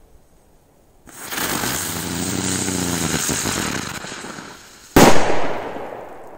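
A rose-type effect firecracker burning on the ground: about a second in it starts a loud hiss with a wavering whistle that lasts nearly four seconds, then it goes off with one sharp, deafening bang about five seconds in, which dies away.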